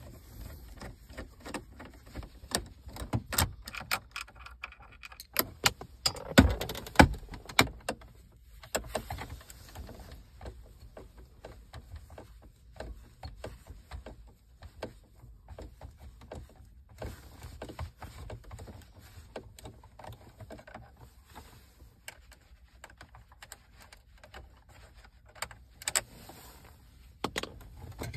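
Clicks, taps and scraping from a screwdriver and hands working the plastic dashboard trim and screws around a car radio, with two louder knocks six to seven seconds in.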